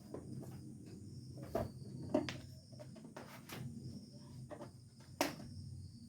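A few faint, separate clicks and knocks of ceiling-fan mounting hardware being handled while the fan is hung and pinned, the sharpest one near the end, over a faint steady hum.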